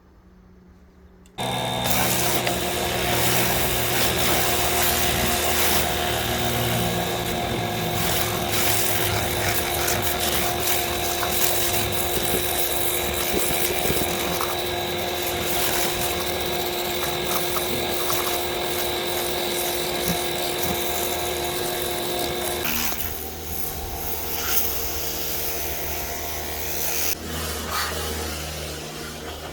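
Pressure washer starts up about a second and a half in and runs steadily with a whine over the hiss of the spray. Near the end the whine drops out and a quieter, rougher noise carries on.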